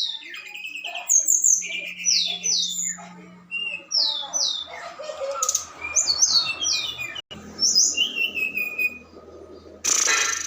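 Several birds chirping, with repeated short, high calls that sweep downward, and a harsh rasping call near the end.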